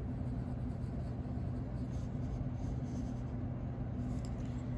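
Colored pencil, a soft-core Faber-Castell Black Edition, scratching lightly on paper in small touches, over a steady low hum.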